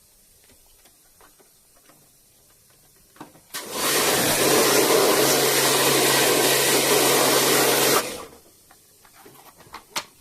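Electric pressure washer spraying water for about four seconds, a steady motor hum under the hiss of the jet; it starts about three and a half seconds in and cuts off sharply. A few light clicks come before and after.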